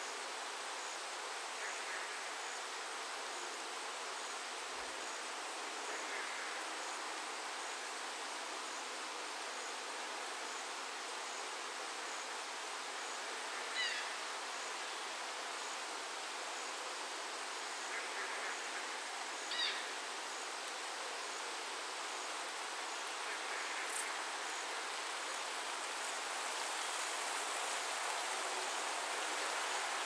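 Steady rain falling, an even hiss that swells slightly near the end, with a faint high tick repeating about once a second and a few brief chirps over it.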